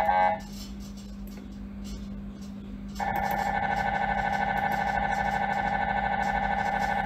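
MRI scanner noise. One imaging sequence cuts off just after the start, leaving only a steady low hum for about two and a half seconds. About three seconds in, the next sequence starts suddenly as a loud, steady electronic tone with a fast fluttering pulse.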